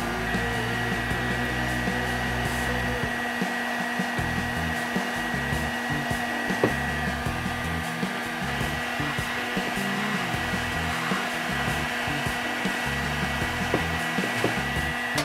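Large construction heat gun blowing steadily: a rushing fan noise with a steady high whine and a lower hum. A few small clicks and one sharp click about halfway through.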